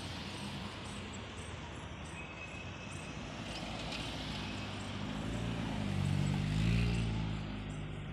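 Outdoor street ambience with insects chirping. From about five seconds in, a passing engine's low drone swells, is loudest around seven seconds, then fades.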